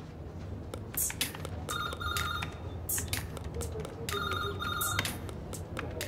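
Telephone ringing twice, each ring a pair of short electronic pulses, the rings a little over two seconds apart, over a steady low hum and scattered clicks.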